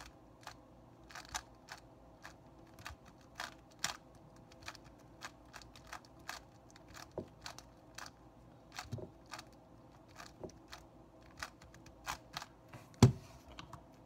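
Plastic 3x3 speedcube being turned by hand, its layers clicking in quick irregular runs, a few clicks a second. One louder knock comes near the end.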